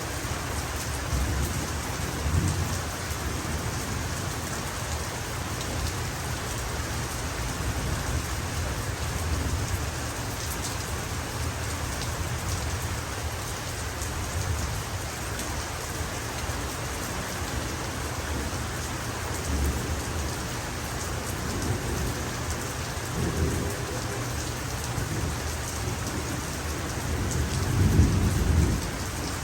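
Heavy rain falling steadily, with distant thunder rumbling low several times; the loudest rumble swells near the end.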